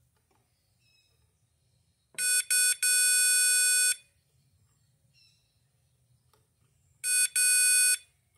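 Power Probe 4 circuit tester beeping as its tip is pressed onto the pins of a 12-pin transmission connector, its tone signalling continuity: three beeps about two seconds in, the last held for about a second, then a short beep and a longer one near the end.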